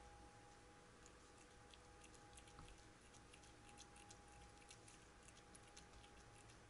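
Domestic cat eating wet canned pâté from a ceramic bowl: faint, quick, wet clicks of licking and chewing, several a second, over a steady faint hum.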